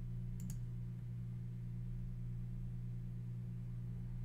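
Steady low hum, a few fixed tones that do not change, with two faint clicks about half a second in.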